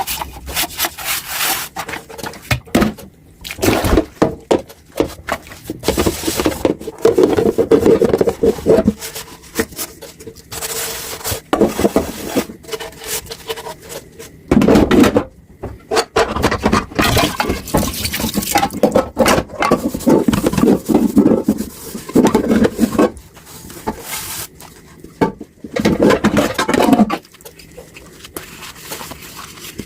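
Dishes and cutlery clinking, knocking and scraping in a sink during hand washing-up, in irregular bursts.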